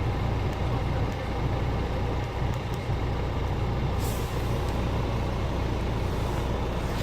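Scania R450 truck's 13-litre straight-six diesel idling steadily, with a short hiss of released air about four seconds in and another at the end.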